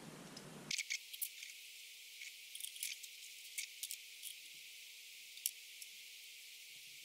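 Faint, scattered clicks and ticks of small drone parts and a hex driver being handled during hand assembly of a small FPV quadcopter. One sharper click comes about five and a half seconds in.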